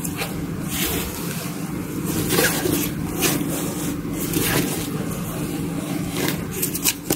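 Nylon fabric of a Kate Spade Chelsea backpack rustling and scraping in short bursts as the bag is handled and turned over, over a steady low hum.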